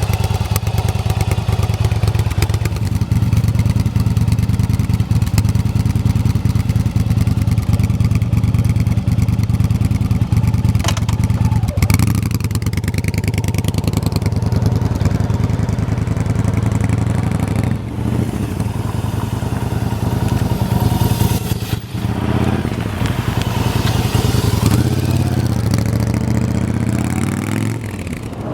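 Yamaha BT1100 Bulldog's air-cooled V-twin engine running through an aftermarket BOS exhaust, a steady, deep, even beat.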